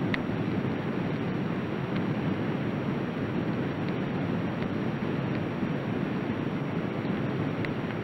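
Steady low rushing noise, an underwater ambience bed with no tune or voice, with a couple of faint clicks near the start and near the end.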